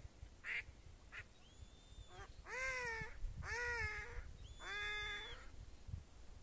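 Live decoy duck giving a slow three-note call: three long, drawn-out quacks about a second apart, after a few short faint calls near the start.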